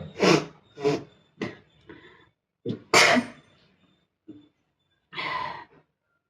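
A woman coughing in a run of short, separate coughs, the loudest about three seconds in, with a longer one near the end. She is coughing from the smoke and fumes of chillies cooking, which are burning her eyes and throat.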